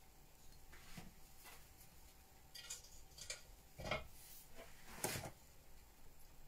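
Several faint knocks and light scrapes from a spatula and a cake pan being handled on a kitchen countertop, the two loudest knocks about four and five seconds in.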